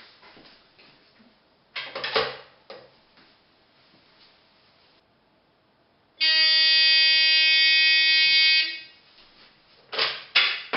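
A rotary phone's handset clatters back onto its cradle about two seconds in. A few seconds later the phone rings with a loud, steady electronic buzz for about two and a half seconds. Near the end the handset is lifted off the cradle with two clunks.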